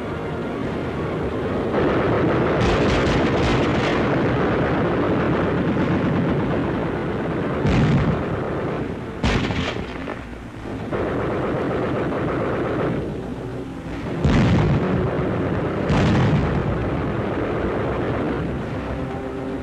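Battle soundtrack of gunfire and explosions: a continuous din of firing, with a rapid burst of shots about three seconds in and several single sharp bangs later on, near eight, nine, fourteen and sixteen seconds in.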